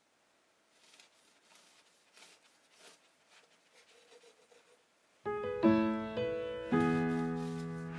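Faint rasping strokes of a serrated bread knife sawing through the crust of a soft loaf, then piano music comes in loudly about five seconds in and takes over.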